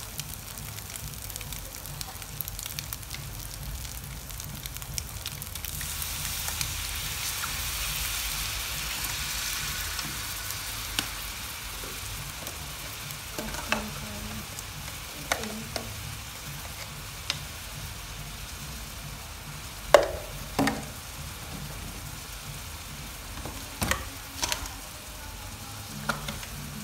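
Duck eggs frying in oil in a wok: a steady sizzle that swells for a few seconds in the first half. A metal wok spatula scrapes and clinks against the wok now and then, most loudly about twenty seconds in.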